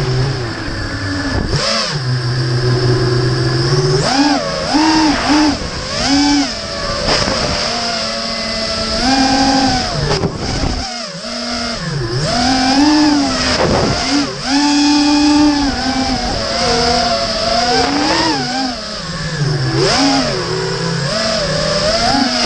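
FPV racing quadcopter's motors whining as heard through the onboard camera, the pitch swinging up and down sharply with throttle changes. The motors briefly drop out about eleven seconds in, and a steady high hiss runs over them.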